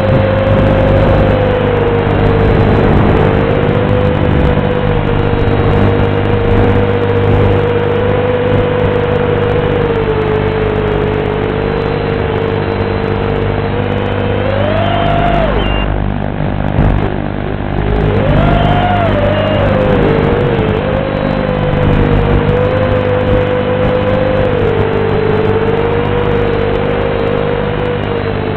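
FPV quadcopter's motors and propellers whining, picked up by the FT48X video transmitter's built-in microphone, so the sound is thin and dull. The pitch holds steady, jumps up sharply about halfway through, drops away briefly, then jumps up again with the throttle before settling back.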